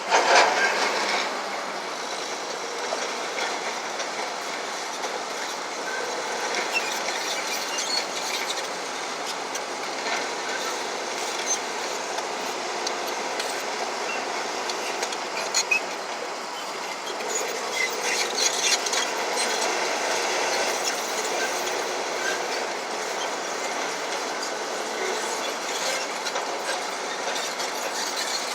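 Heavy earthmoving machinery working: steady machine noise with scattered metallic clanks and squeals.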